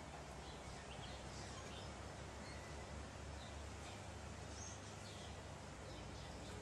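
Steady outdoor background hiss with faint, short bird chirps scattered through it.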